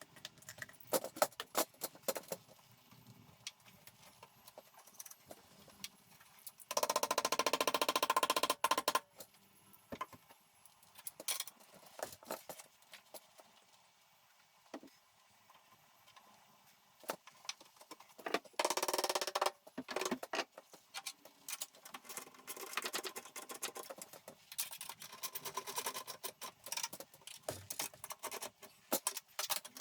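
Clinks and knocks of metal parts being handled, with a power drill or driver running in two bursts of about two seconds each, the first about seven seconds in and the second near the middle.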